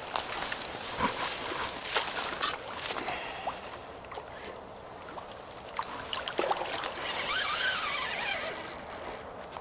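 Dry reed stems rustling and crackling close by, with handling of a spinning rod and reel. About seven seconds in comes a wavering, buzzing sound lasting about two seconds.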